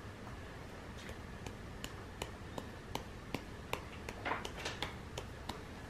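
Faint sticky pats and clicks of hands clapping and pressing a lump of Silly Putty, about two or three a second, with a quick flurry of them a little past halfway.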